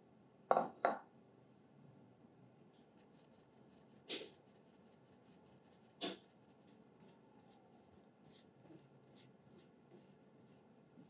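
Icing sugar being sifted through a fine wire mesh sieve over a stainless steel bowl. Two sharp knocks about half a second in and two single knocks later, with light quick tapping on the sieve to shake the sugar through.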